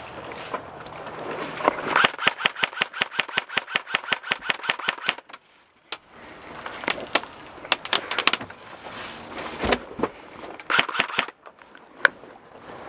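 Airsoft gun firing a long full-auto burst of sharp clicks, about eight shots a second, for about three seconds. Scattered single shots and short bursts follow over rustling noise.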